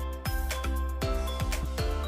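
Background music with a steady electronic beat and sustained synth tones.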